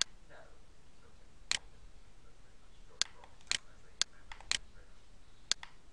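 Computer mouse clicking: about eight short, sharp clicks at uneven intervals, some in quick pairs.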